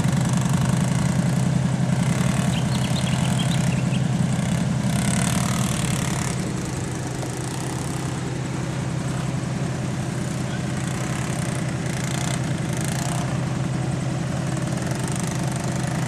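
Land Rover engine running steadily, easing off slightly about six seconds in.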